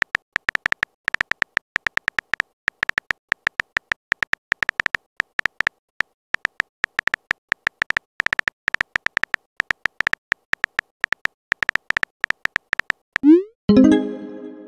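Phone keyboard tap sounds from a texting app, short clicks at several a second in an uneven run as a message is typed. Near the end a short rising swoop and a bright chime that rings and fades mark the message being sent.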